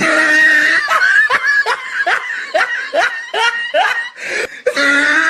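A person laughing: a drawn-out vocal sound, then a rapid run of short rising laughs about two to three a second, and another drawn-out vocal sound near the end.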